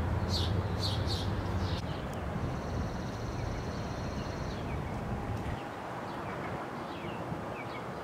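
Wild birds chirping in short, quick calls over a low steady hum, which drops away about five and a half seconds in.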